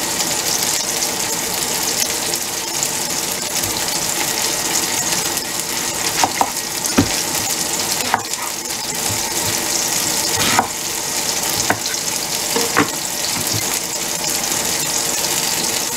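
Chicken frying in olive oil in a pan, a steady sizzle, with a few sharp knocks of a knife cutting through mango onto a wooden cutting board.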